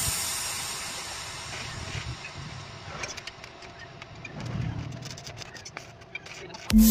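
Background music fading out, then low hiss with scattered light clicks and taps of steel and a welding electrode holder being handled on a concrete floor; music starts again loudly near the end.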